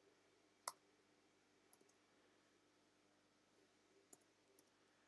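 A few faint, isolated keystrokes on a computer keyboard against near silence. The first, about two thirds of a second in, is the loudest, and a few softer ones follow.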